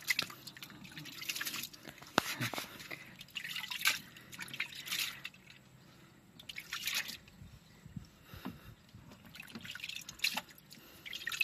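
Soapy water splashing and dripping in a tub as a hand moves through it around a soaking engine cylinder head: irregular drips and small splashes, a few louder than the rest.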